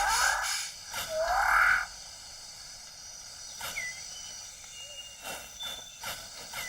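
Rainforest animal calls: two loud, harsh rasping calls in the first two seconds, the second with a rising glide. Then a quieter forest background with short high whistles and scattered clicks.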